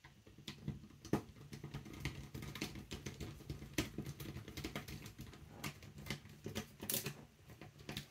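Screwdriver driving a small Torx 8 screw into an airsoft rifle's version 3 gearbox shell: a run of light, irregular clicks and ticks from the driver and parts against the shell.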